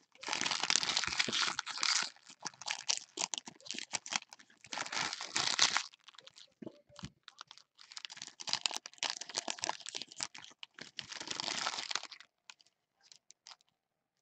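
Foil trading-card pack wrappers crinkling and cards being shuffled and stacked by gloved hands, in rustling spells of a second or two with short pauses, thinning to a few light ticks near the end.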